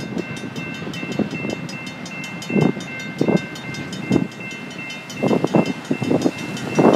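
Grade-crossing warning bell ringing with fast, even strokes as the crossing gates lift, cutting off near the end. Irregular dull clunks sound several times underneath it.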